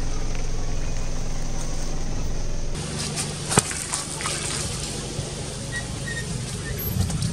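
Car tyre rolling slowly over vegetables on wet concrete, over a low steady hum. About halfway through comes one sharp crack, followed by a few smaller crackles, as the tyre crushes a ridged green vegetable flat.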